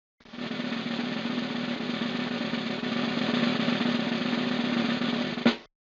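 Wood lathe with a gouge cutting into spinning wood: a steady rattling hiss over a constant hum, ending with a sharp click shortly before it cuts off.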